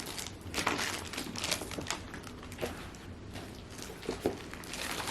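Crinkling and rustling of packaging as gift items are handled, with short clicks and crackles that come thickest in the first two seconds and again here and there later.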